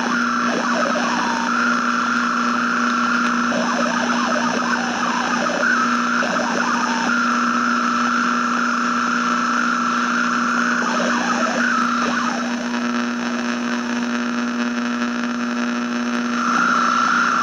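Radio static: a steady hiss over a low hum, with a high whistle that fades in and out several times. Bursts of crackle come in the first few seconds and again about eleven to twelve seconds in.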